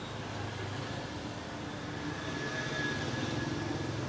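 Steady mechanical drone of a running engine, growing a little louder about two seconds in.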